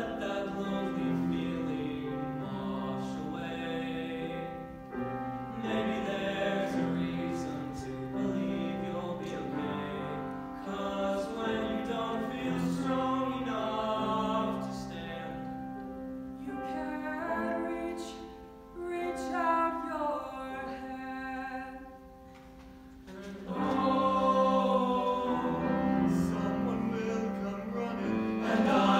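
High school choir singing in harmony with piano accompaniment, dipping briefly and then swelling louder about three-quarters of the way through.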